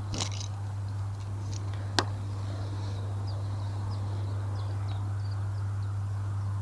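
Small birds chirping in short, repeated high calls over a steady low hum, with a brief rustle at the start and one sharp click about two seconds in.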